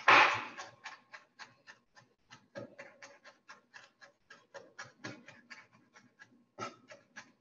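A knife finely chopping parsley on a cutting board: quick, even taps of the blade on the board, about five a second, with a few harder strokes at the start.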